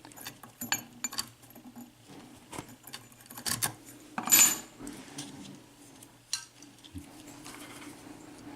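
Small metallic clicks and rattles of a key and lock hardware being handled at a Corbin Russwin interchangeable-core lock cylinder, with one longer scraping rattle about four seconds in and a dull knock near the end.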